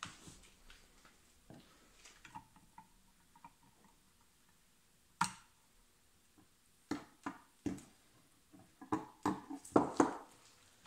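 Hand tools clicking and knocking against a chainsaw's parts during disassembly. There is a single sharp knock about five seconds in, then a quick run of clicks and clanks near the end.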